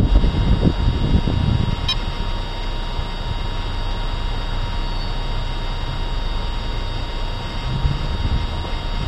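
Car driving slowly, a low steady rumble from the road and engine, with wind buffeting a roof-mounted microphone in the first second.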